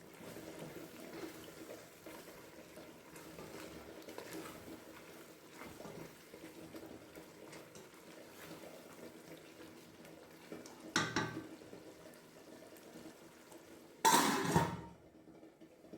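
Cooking pots and metal utensils clattering and scraping over a faint steady kitchen background, with a sharp clank about eleven seconds in and a louder, longer clatter near the end.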